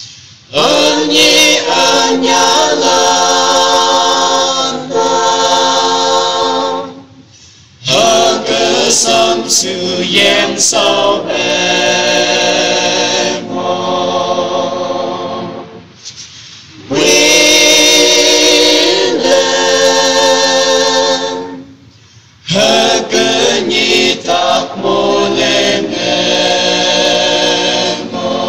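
A choir singing unaccompanied, in sung phrases broken by a few short pauses.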